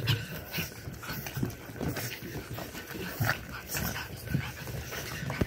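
Pug puppies at play: short, low vocal noises recurring irregularly about twice a second, with light scuffling.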